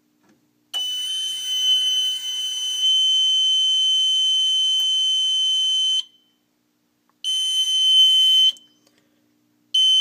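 Mircom FA-204E fire alarm control panel's buzzer sounding a steady high-pitched tone after a system reset. The tone holds for about five seconds, stops, sounds again for a second or so, then starts a third time near the end.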